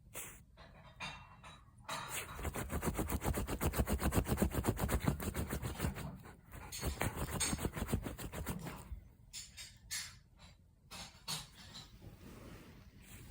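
A Shiba Inu puppy digging at a futon with its front paws: rapid, rhythmic scratching of paws on the fabric. It starts about two seconds in, runs for several seconds, then breaks into a few scattered scratches.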